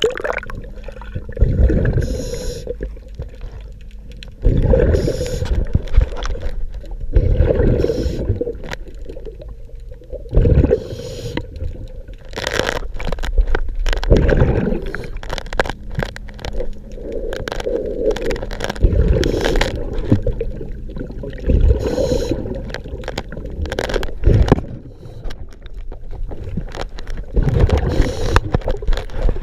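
Scuba diver's breathing underwater: the regulator hisses on each inhale and exhaust bubbles gurgle out on each exhale, in repeated bursts every couple of seconds.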